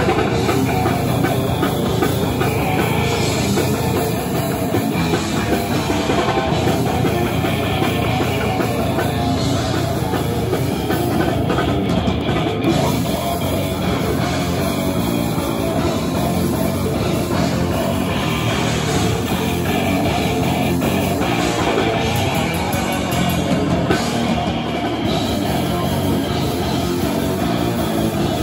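Death metal band playing live and loud, with electric guitar, five-string electric bass and drum kit all sounding together.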